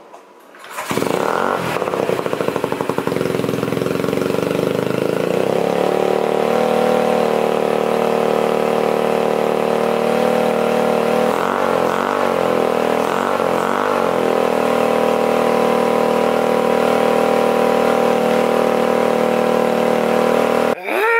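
Honda Ruckus scooter engine breathing through a Yoshimura carbon fiber exhaust, starting about a second in and then running steadily. A little past the middle its pitch rises and falls three times as the throttle is blipped.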